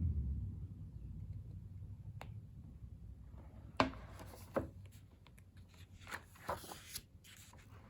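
A photobook being handled and its pages turned: a few light taps and short paper rustles, the rustling busiest near the end.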